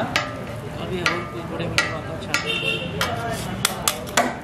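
Metal spatula clacking and scraping on a flat tawa griddle while tossing tawa idli pieces in spice masala: about eight sharp strikes at irregular intervals, over light sizzling.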